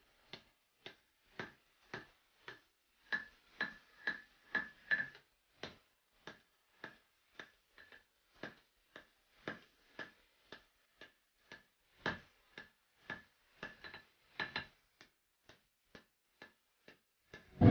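Hand hammer striking a red-hot old axe head on a steel anvil, steady blows about two a second, each with a short metallic ring. The blows are loudest around five seconds in and again around twelve seconds, and fainter toward the end.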